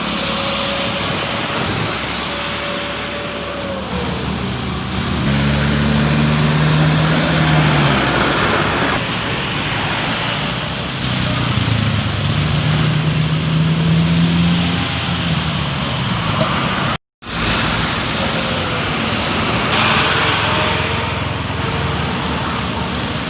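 Road traffic: vehicle engines running and passing, over steady tyre and road noise.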